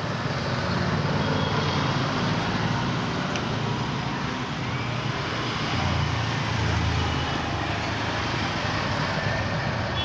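Road traffic: vehicle engines running and passing on the street, a steady rumble with a low engine hum that swells twice.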